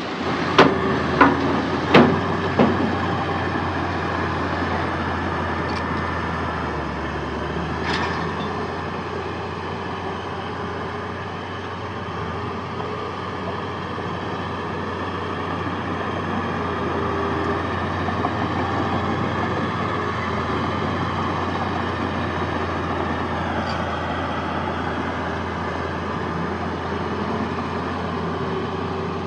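Heavy diesel earthmoving machinery running steadily. Four sharp knocks come about half a second apart in the first three seconds.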